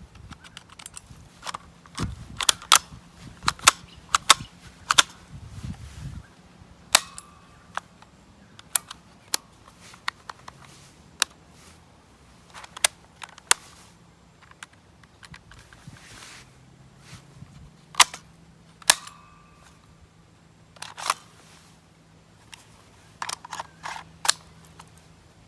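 Sharp clicks and snaps from a manual toy 1911 gel ball pistol being worked, coming singly and in quick clusters of two to five.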